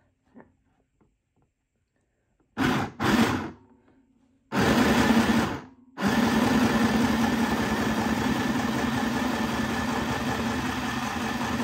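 Electric sewing machine started with its foot pedal: two short bursts, then another of about a second, then running steadily from about six seconds in.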